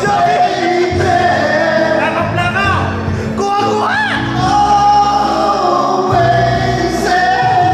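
A man singing into a handheld microphone over a song's backing music, amplified through loudspeakers.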